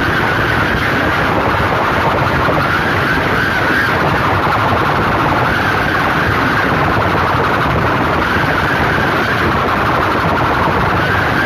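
A wall of horn loudspeakers blaring at full volume. The sound is a steady, heavily distorted wash, with a high tone that swells and fades slowly and never drops out.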